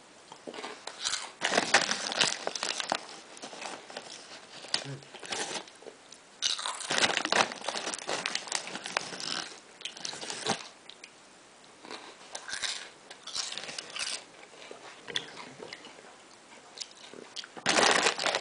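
Crunching potato chips and crinkling a chip bag close to the microphone, in irregular bursts with short pauses between them.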